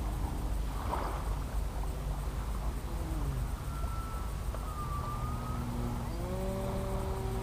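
Small propeller aircraft's engine droning overhead, its pitch sliding up and down as it flies past and manoeuvres, over a steady low rumble of wind on the microphone.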